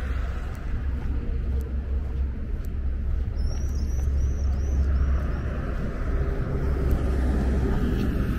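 Steady low rumble of road traffic. About three and a half seconds in, a small bird gives a quick run of five high chirps.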